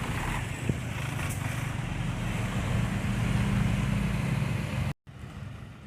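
Low engine rumble of a passing bus, growing louder over a few seconds, then cut off suddenly, leaving fainter road traffic noise.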